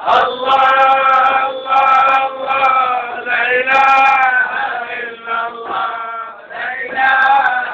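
Group of men singing a Sufi devotional chant together in long held notes, with scattered sharp frame-drum strokes.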